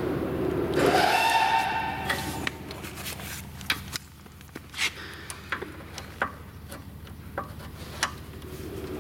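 Scattered small sharp clicks and taps of crimped spade terminals and a small micro-switch sensor being handled and unplugged, over a steady low hum. A brief pitched sound about a second in is the loudest thing.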